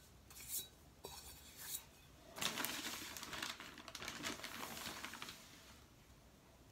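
A bag of Custer feldspar powder being handled and opened: a few short rustles and a click, then about three seconds of steady crinkling and rustling that dies away near the end.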